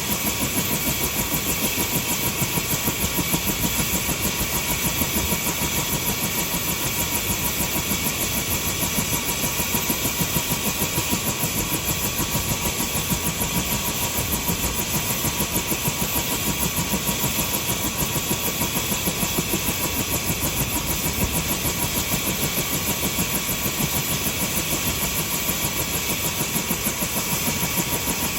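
Helicopter running steadily at a constant speed, with a fast, even pulsing beat and a faint steady whine.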